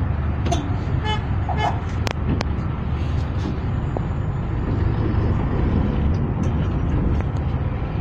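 Steady low rumble of vehicle engines and street traffic, with a brief horn toot about a second in and two sharp clicks around two seconds in.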